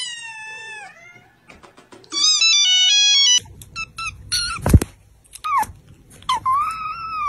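Kittens meowing: a long falling meow at the start, then a tabby kitten's few short high meows and a longer meow near the end. About two to three seconds in, a short melody of stepped electronic beeps.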